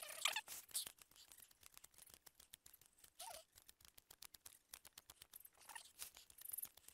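Faint clicking and scraping of a knife whittling a freshly cut stick, with a few short, squeaky pitched sounds scattered through it; the loudest comes just after the start.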